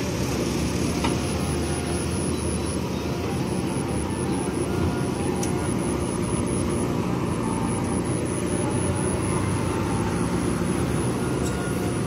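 Diesel engine of a JCB backhoe loader running steadily under load as the machine digs mud, with a few faint clinks.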